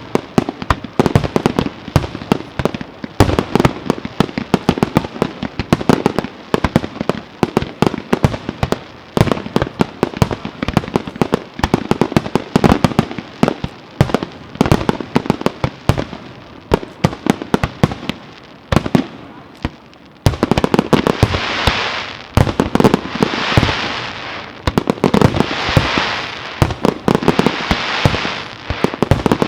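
Fireworks display: a dense, rapid run of sharp bangs and reports, then from about twenty seconds in repeated swells of hissing noise mixed with bangs.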